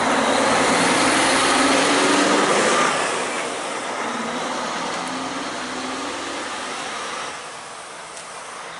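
A motor vehicle driving past, its noise loudest for the first three seconds and then fading away.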